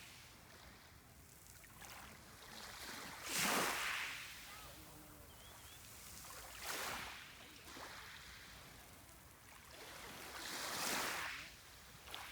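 Sea waves washing in, three surges of surf a few seconds apart, each swelling and fading over about a second; the first is the loudest.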